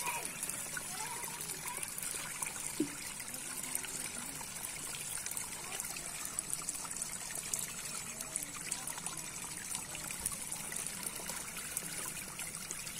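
Steady wet trickling with many small crackling ticks, from water and a heap of live small fish wriggling against a split-bamboo fish trap; one sharper tick stands out about three seconds in.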